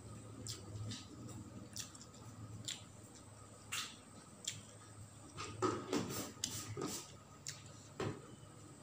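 Close-miked eating sounds of a person eating rice and grilled fish by hand: wet chewing, lip smacks and squishy clicks of food in the mouth and between the fingers. The smacks come scattered and grow busier about two-thirds of the way through.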